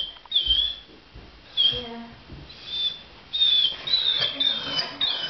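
Dog whining in a string of short, high-pitched squeaks, about seven in a row, each bending in pitch.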